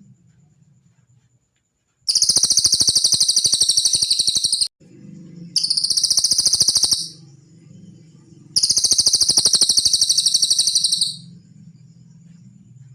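Cililin songbird song used as a master recording: three bursts of a very fast, high-pitched trill, the first and last about two and a half seconds long and the middle one shorter, each cutting off abruptly, over a faint low hum.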